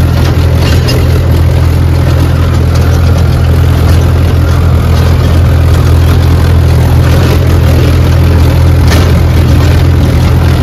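Diesel tractor engine running steadily at a constant pace as the tractor works across a dry field, with a few brief clatters, one about a second in and one near the end.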